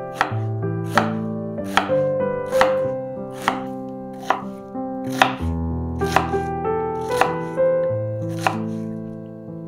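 Kitchen knife chopping food on a cutting board in steady, regular strokes, about one every second, over soft background piano music.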